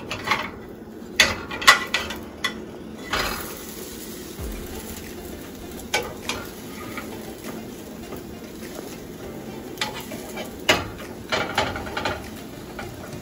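Spatula scraping and tapping against a small nonstick frying pan as a pancake cooks, over a steady faint sizzle. The strokes come in a cluster in the first few seconds, a single one about halfway, and another cluster near the end.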